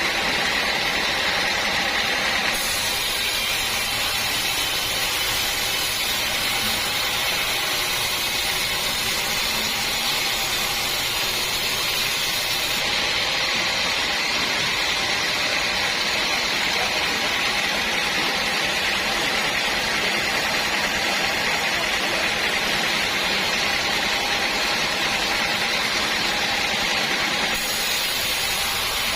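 Sawmill saw running and cutting through a teak log: a steady, loud whine with a hiss that holds at an even level, its high hiss changing abruptly a few times.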